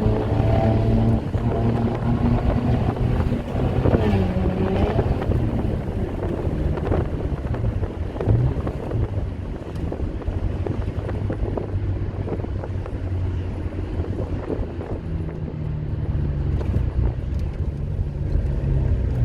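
Toyota Crown's engine and exhaust while driving: a steady low drone under road and wind noise, the engine note easing off in the first second after a burst of acceleration.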